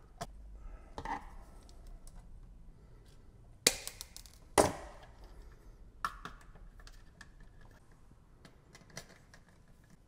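A GFCI receptacle and its wires being handled in the metal wall box: scattered small clicks and rattles, with two sharp clicks about a second apart a little before the midpoint.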